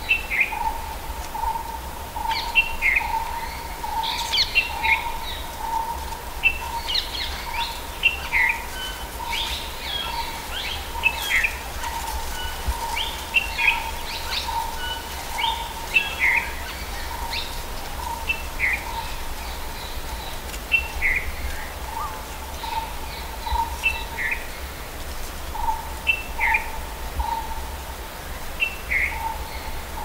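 Tropical seasonal forest ambience in a stand of bamboo. One bird repeats a mid-pitched note about twice a second, pausing briefly about two-thirds of the way through, while other birds add scattered higher chirps and calls over low wind noise.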